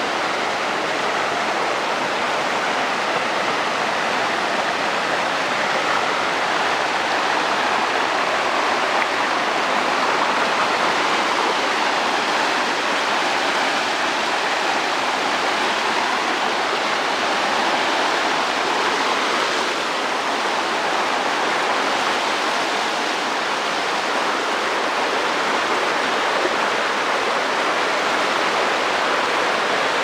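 A mountain stream rushing over rocks: a steady, unbroken rush of white water.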